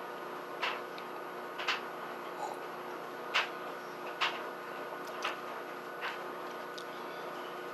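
A spoon clicking against a ceramic mug about six times, roughly once a second, over a steady faint background hum.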